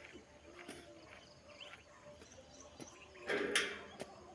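A welded steel mesh grill panel rattling and scraping for about half a second as it is handled off an auto-rickshaw roof, about three seconds in, ending in a sharp click. A few faint bird chirps come earlier.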